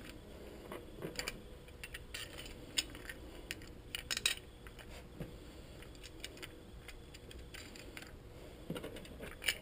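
Light, scattered clicks and taps of small screws and hard plastic parts being handled as a Scotty rod mount is fitted to a mounting plate and its screws started by hand.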